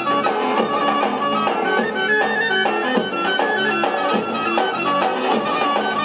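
Albanian folk dance music with a steady beat and held melody notes.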